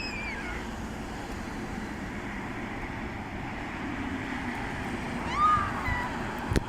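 Steady outdoor rushing noise, with a short whistle-like call that rises and then levels off about five seconds in, and a sharp click near the end.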